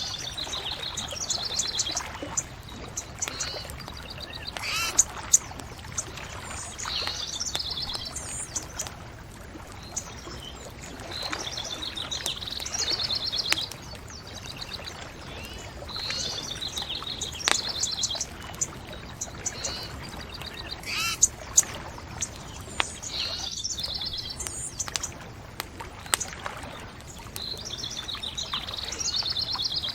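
A songbird singing the same short trilled phrase over and over, about every four to five seconds, with a few sharp pops from a crackling bonfire over a steady low rush of background noise.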